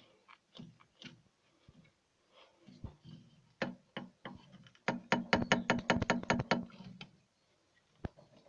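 Knocking from the rear coil springs of a 2016 Renault Duster 4x4 over bumps. A scatter of sharp clicks is followed, about five seconds in, by a fast run of about ten loud knocks over a low hum, and one more knock near the end.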